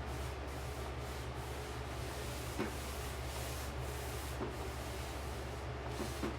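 Cloth rubbing back and forth over a freshly stained red oak stair nosing, wiping off the excess oil-based stain, in repeated strokes with a few faint knocks, over a steady low hum.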